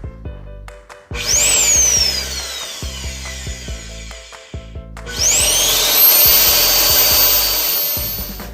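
A 1.6 hp vacuum cleaner motor running up twice. First a whine climbs quickly and then winds down over about three seconds; then it climbs again to a high steady whine at full speed, fading near the end. Background music with a steady beat underneath.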